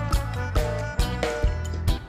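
Background music with a steady beat: drum hits about twice a second over bass and pitched instrument notes.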